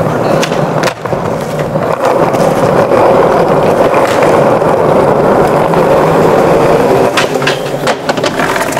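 Skateboard wheels rolling steadily over smooth stone paving, with a sharp clack of the board about a second in and a quick run of clacks and knocks near the end.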